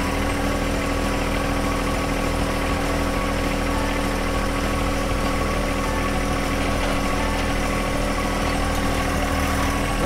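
Diesel engine of a John Deere tractor with a backhoe running steadily at one even pitch while its hydraulics lower the stabilizer legs.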